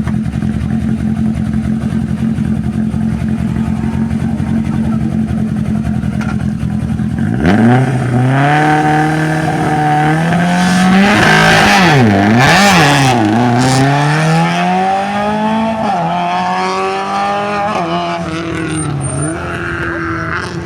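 Rally car engine running steadily, then launching off the start about seven seconds in: the revs climb sharply, fall and rise again through several gear changes, and the engine note fades as the car pulls away.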